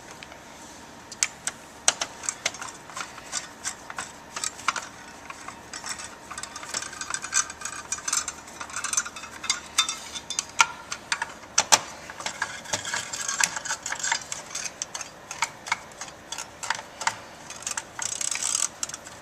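Irregular clicks, taps and rattling scrapes of a computer's heatsink being refitted onto the motherboard over the processor and its screws turned in.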